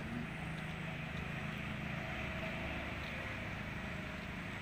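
Steady running noise of a vehicle driving along a road: a low engine hum under even road noise.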